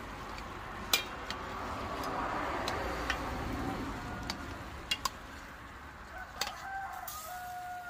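Utensil clinking against a stainless steel cooking pot as fish are turned in a coconut rundown: about eight short, sharp knocks spread irregularly over a steady low hiss.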